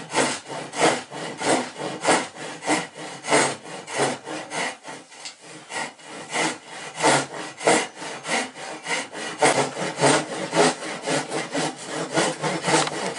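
Japanese handsaw cutting through the glued-up softwood slices of a laminated model boat hull, sawing off the stern with a steady rasp of strokes about two a second.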